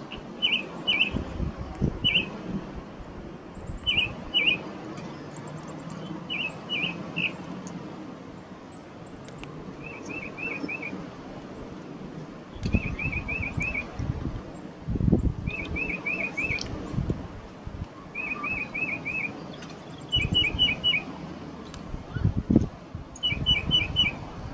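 A small songbird calling over and over in short runs of two to four quick, high notes, a run every second or two. Bursts of low rumbling noise come and go beneath the calls.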